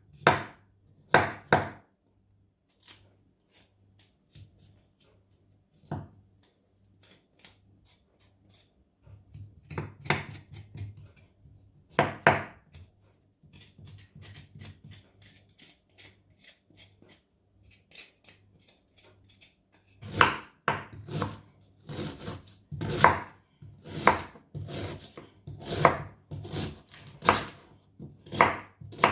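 Knife chopping on a cutting board: a few separate cuts with pauses between them, then a quicker, regular run of strokes, about two a second, for the last third.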